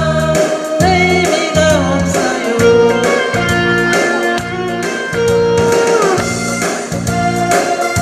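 A woman singing a Korean trot song over an amplified backing track with a steady beat.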